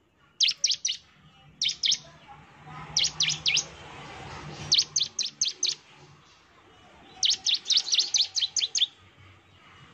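Bar-winged prinia (ciblek) calling in short bursts of three or four sharp, high notes that drop in pitch, repeated several times, with a longer rapid run of notes about seven seconds in.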